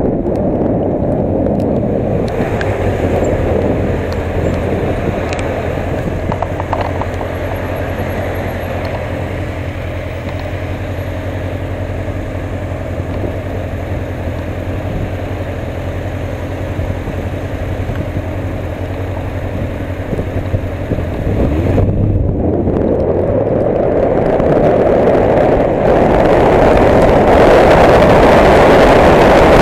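Motorcycle engine running steadily while riding on a wet road, under a rush of wind and road noise. About three quarters of the way through the engine note rises, and the wind rush grows louder to the end as the bike speeds up.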